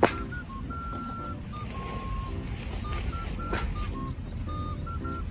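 Background music: a simple electronic melody of short beeping notes over a low rumble. Two sharp knocks cut through it, one at the very start and one about three and a half seconds in.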